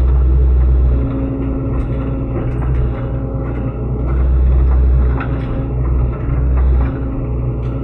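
Sany SY75C excavator's diesel engine running under varying load, its loudness rising and falling, with a whine that comes and goes in stretches and scattered knocks as it pushes uprooted bamboo.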